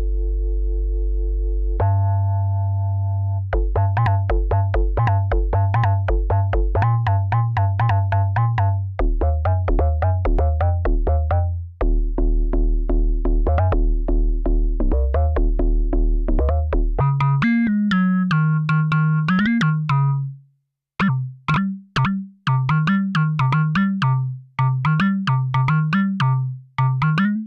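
Arturia MiniFreak hybrid synthesizer playing its presets. Held chords give way, about three seconds in, to a fast repeating sequenced pattern over a bass line. Past the middle, a gliding bass comes in under short, detached notes, with a brief break near the three-quarter mark.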